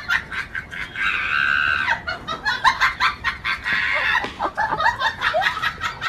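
Chickens clucking rapidly and excitedly, with one longer drawn-out call about a second in.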